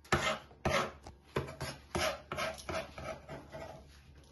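Kitchen knife chopping hard-boiled egg on a wooden cutting board: about nine or ten uneven strokes, the first ones loudest.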